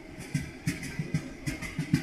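Train wheels clacking over rail joints: a rapid, uneven run of knocks, several a second, over the steady rumble of a moving train.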